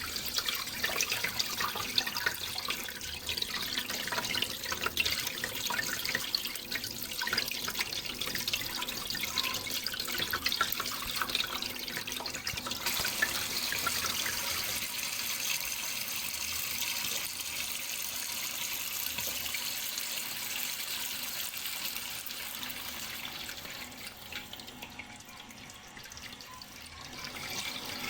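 Running water splashing and trickling, with many small drips and splashes for the first half, turning to a smoother, hissing flow about halfway through and dropping for a few seconds near the end.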